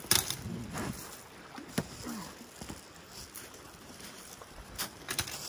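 Scattered sharp clinks and knocks of a bent metal rod being handled, with pebbles shifting underfoot and a couple of short grunts.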